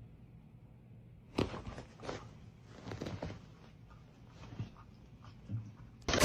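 A few faint, short sounds from a dog, spread out with quiet between them.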